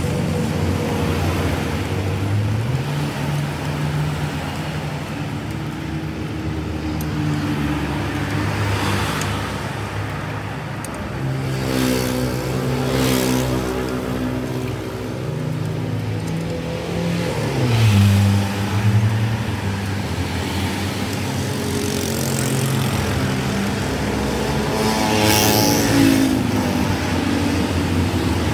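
Motor vehicle engine running at low speed, its pitch holding for a few seconds at a time and stepping up and down with the throttle, with a falling pitch about two-thirds of the way through.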